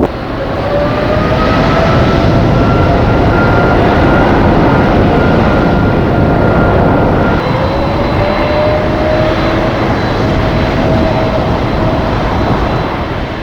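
Jet airliner engines: a loud rushing noise carrying whining tones that slowly slide in pitch. A new set of whining tones comes in about halfway through.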